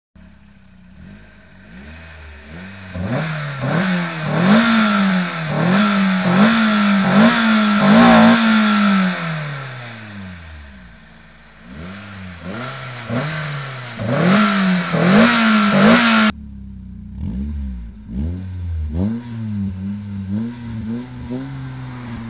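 A Mk2 VW's ABF 2.0-litre 16-valve four-cylinder engine blipped repeatedly from idle, about one rev a second in two runs, with one longer rev that falls slowly back to idle. Later the level drops suddenly and the engine idles with lighter, smaller blips.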